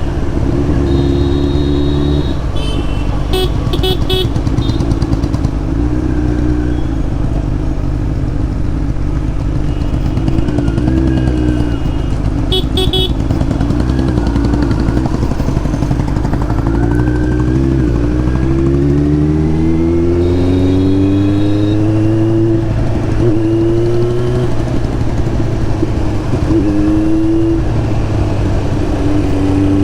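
Kawasaki Z900 inline-four running through an SC Project slip-on exhaust while riding, the engine pitch rising through several gear changes as it accelerates about two-thirds of the way in. Short horn toots from other vehicles come a few times.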